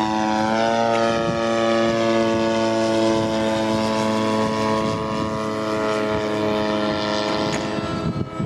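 Radio-controlled model seaplane's motor and propeller running under power through its takeoff run off the water and climb-out: a steady whining tone whose pitch shifts briefly near the start.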